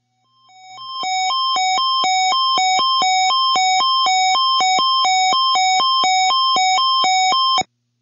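Electronic two-tone alert signal on a weather-radio broadcast, switching between a high and a low pitch about twice a second. It fades in, holds steady and cuts off abruptly near the end. It is the attention tone that announces an incoming weather warning.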